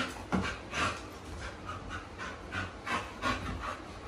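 An American bully dog panting in short breathy puffs, about two a second.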